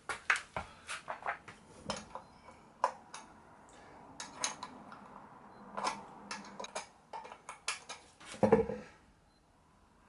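Metal hand tools clinking and tapping against the wheel and each other in a quick, irregular run of sharp clicks, with one heavier knock about eight and a half seconds in.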